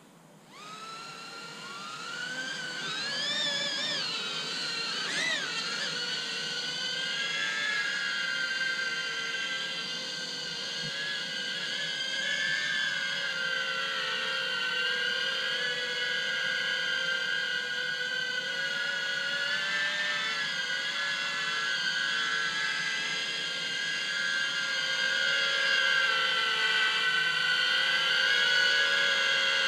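Diatone GT-R90 micro FPV quadcopter's brushless motors and propellers spinning up to a high, multi-tone whine. The pitch sweeps up and down over the first few seconds, then settles into a steady whine that wavers slightly and grows a little louder. The quad is working hard at about half throttle to lift an oversized 1500 mAh 3S battery.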